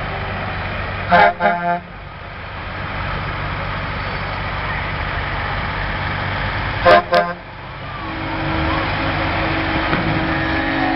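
Heavy tow truck horn sounding two quick double toots, one about a second in and one about seven seconds in, over the steady running of big trucks rolling past. Near the end a steady engine drone rises as a truck comes close.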